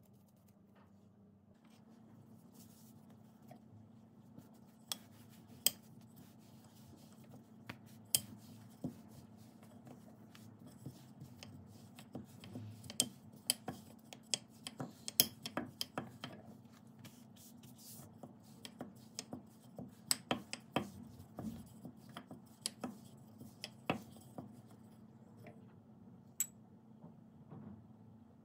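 Thin wooden rolling pin rolling out dough on a countertop: scattered sharp clicks and taps of wood against the counter, thickest in the middle stretch, over a faint steady low hum.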